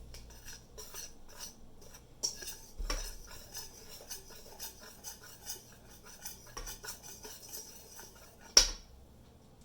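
Wire whisk stirring dry flour in a mixing bowl, the whisk clicking and scraping rapidly against the bowl to break up lumps, with one sharp knock near the end.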